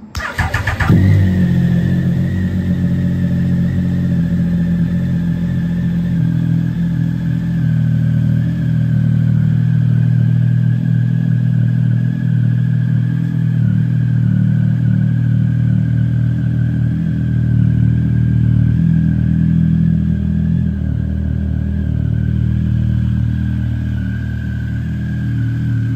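Triumph Speed Triple 1050 S's three-cylinder engine, on SC racing exhausts, cranking briefly and firing about a second in, then settling to a steady idle.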